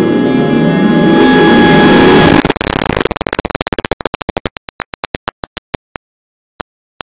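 FL Studio's FL Keys piano plugin sounding a huge dense cluster of notes at once, a very loud, dissonant mash of piano tones. About two and a half seconds in it breaks into rapid stuttering bursts that slow to separate clicks a few times a second, as the playback lags under the note load.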